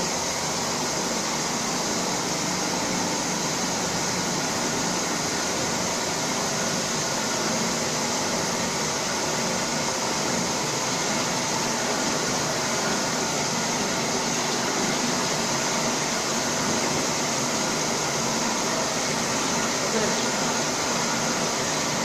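Peanut oil refining equipment running: a steady machine whir and hiss that does not change.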